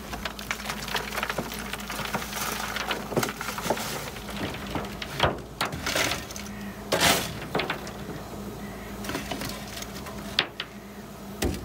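Lumps of coal clattering: a bucket of coal tipped into a steam locomotive's bunker, then a shovel scraping and digging into a heap of coal and coal tumbling into a bucket, with louder rattles about five and seven seconds in. A steady low hum runs underneath.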